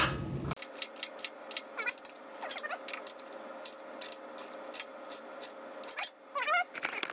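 Ratchet wrench clicking in irregular runs as the running-board bracket bolts are tightened, with a few brief squeaky whines, one about two and a half seconds in and one near the end.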